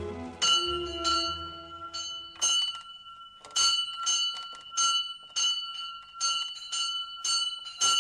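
Small bell in a wooden village bell tower being rung, struck over and over about twice a second, somewhat unevenly, each stroke leaving a clear high ring that carries into the next. Soft orchestral score fades out under the first couple of seconds.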